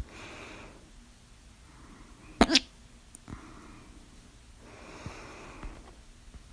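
A person's loud hiccup about two and a half seconds in, a sharp, very short catch with two close peaks, between two breaths.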